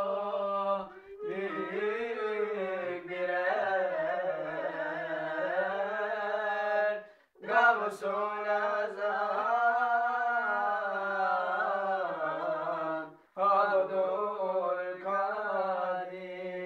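Young men singing a Turkish ilahi, a devotional hymn, a cappella. The phrases are long and drawn out with ornamented, wavering pitch, broken by short pauses for breath.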